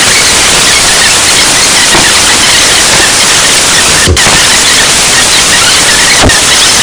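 Loud, steady static hiss filling the audio track, with a faint low thump about every two seconds.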